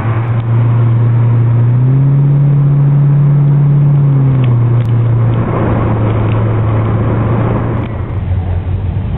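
FPV FG Falcon's engine and exhaust running at a steady note. The note rises a little about two seconds in and settles back down about two and a half seconds later.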